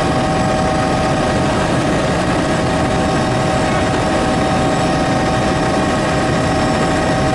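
Helicopter in flight heard from inside the cabin: a steady drone of rotor and engine with a constant whine over it.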